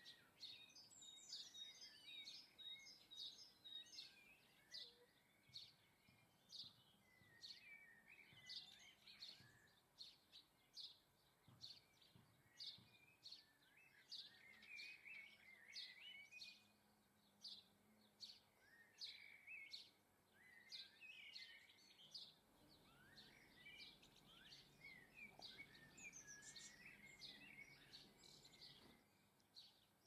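Faint calls of small garden songbirds: many short, high chirps, a few a second, mixed with lower twittering phrases throughout.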